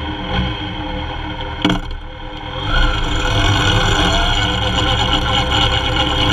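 Kawasaki Z750's inline-four engine idling, a single sharp click about a second and a half in, then the engine pulls harder and louder as the bike moves off, its pitch slowly rising.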